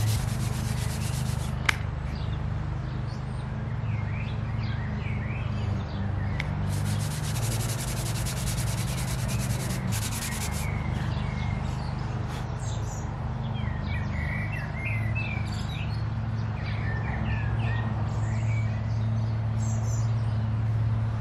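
Small wooden model waka hull being sanded by hand: quick rasping rubbing strokes in two stretches, one at the start and one near the middle, with a single sharp click early on. Birds chirp throughout, and a steady low hum runs underneath.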